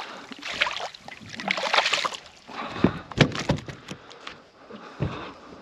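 Water splashing and sloshing as a freshly landed barramundi thrashes, with a few sharp knocks around three seconds in and another near the end.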